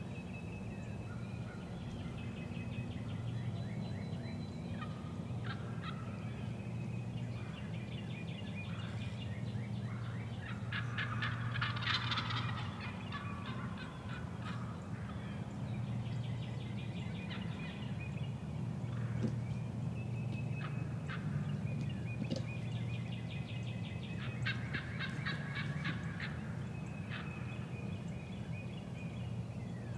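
Eastern wild turkey gobbler gobbling several times, the loudest gobble about twelve seconds in, over a steady low hum.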